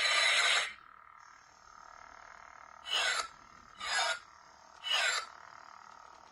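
Toy sound-FX lightsaber's electronic sound effects from its built-in speaker. A burst of loud noise cuts off less than a second in, then a steady electronic hum runs on, broken by three swing swooshes about a second apart, each falling in pitch.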